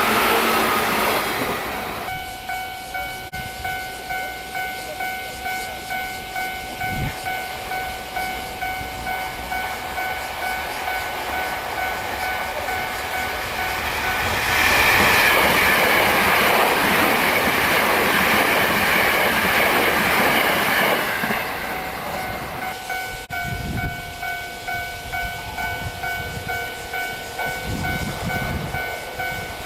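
Japanese railway level-crossing warning bell ringing in a steady repeating electronic beat. From about halfway through, a train rushes past for several seconds and covers the bell. The bell rings on after the train has gone.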